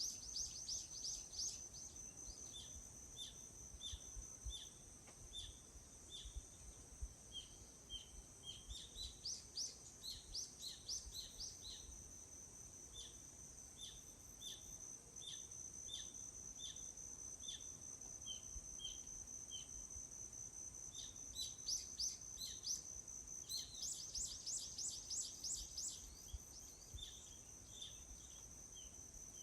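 Forest ambience: a steady high insect drone under a bird repeating a short chirp about twice a second, with two bursts of quick, high bird song, one about ten seconds in and one a little past twenty seconds.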